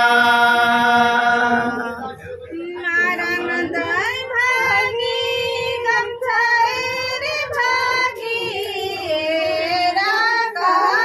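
A group of voices singing a song together: a long held note gives way, about two seconds in, to a melody with sliding pitch in short phrases.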